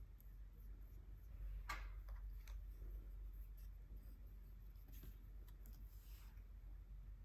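Faint scratchy strokes on paper, the clearest about two seconds in, with a few softer ones later, over a low steady room hum.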